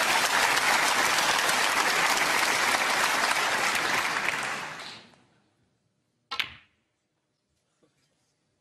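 Audience applauding a century break in snooker, dying away about five seconds in. About a second later comes one sharp click from the snooker table.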